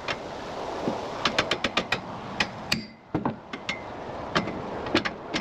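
Hammering: a run of sharp taps in quick succession starting about a second in, then single knocks spaced a fraction of a second to a second apart.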